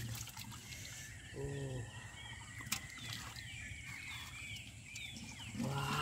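Shallow muddy water splashing and sloshing as large fish are grabbed by hand, with small birds chirping repeatedly in the background.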